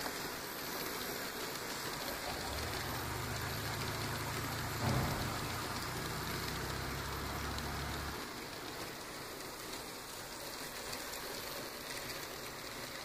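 N scale model freight train running along the track, a steady rattling hiss from its wheels on the rails, with a low hum from about 2.5 to 8 s and a single click about 5 s in.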